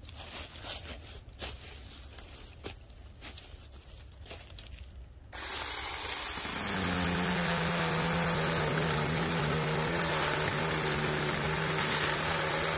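Prodcyc 36 V cordless mini chainsaw: clicks and rustling of branches as it is worked into the shrub, then about five seconds in the electric motor starts and runs steadily, its hum dipping slightly in pitch a second later. The chain is mounted backwards, so it spins against the wood without cutting.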